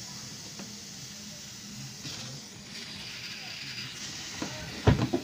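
Steady hiss of air as the airgun is charged through a fill fitting, with a few sharp knocks near the end.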